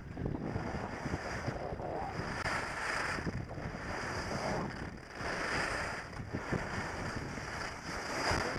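Wind rushing over the microphone and skis hissing and scraping over groomed snow, swelling about every three seconds.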